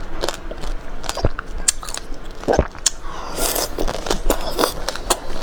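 Close-miked biting and chewing into a crisp-shelled ice cream bar: irregular crunches and cracks as the shell breaks.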